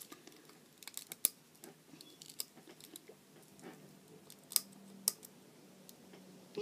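Fingers picking at the top of a small plastic setting spray bottle while trying to open it: scattered light plastic clicks and scratches, with a few sharper ticks.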